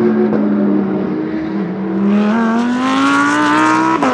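Racing car engine running at high revs. Its note sags over the first second and a half, then climbs steadily as the car accelerates, drops sharply near the end and starts climbing again.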